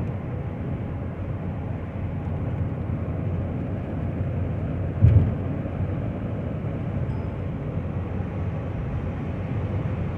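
Steady engine and road noise of a car being driven, heard from inside the car, with a single short thump about five seconds in.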